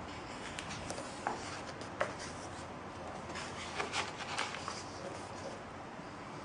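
Pages of a large art book being handled and turned by hand: paper rubbing under the fingers, a couple of short paper clicks, then a rustling flurry about halfway through as a page is turned over and smoothed flat.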